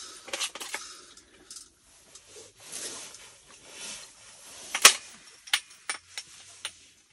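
Small fishing tackle being handled: a series of sharp clicks and light knocks with some soft rustling, the loudest a single sharp snap about five seconds in.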